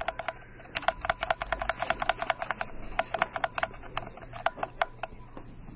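A rapid, irregular run of sharp clicks and taps, several a second, which stops abruptly near the end.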